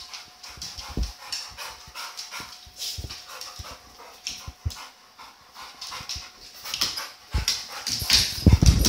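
A pit bull scrambling on a hardwood floor as it jumps at a helium balloon: claws clicking and paws thumping, with the dog panting. The heaviest run of thumps comes near the end.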